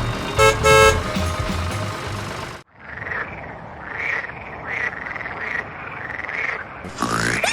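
Two short horn toots over a steady engine-like drone, which cuts off suddenly about two and a half seconds in. A run of short repeated chirping calls follows, each rising and falling in pitch, with sweeping tones near the end.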